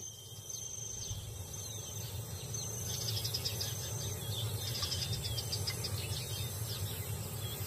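Insects trilling in rapid pulsed bursts, with short chirping bird calls and a low steady rumble underneath.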